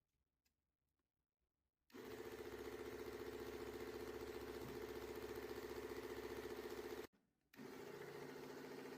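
Mini electric belt sander's small motor switching on and running with a steady hum. It cuts out for about half a second later on, then runs again.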